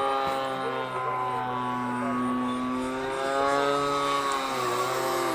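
Radio-controlled model airplane in flight: its motor and propeller drone steadily, the pitch wavering a little and dipping near the end.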